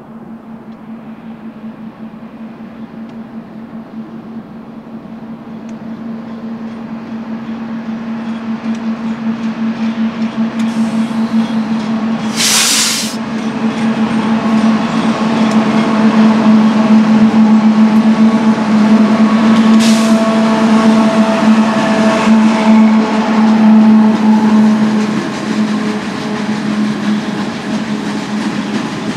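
Eastbound BNSF freight train led by diesel locomotives approaching and passing: a steady engine drone grows much louder, peaking for several seconds as the locomotives go by, with rolling wheel and rail noise. A brief hiss comes about twelve seconds in.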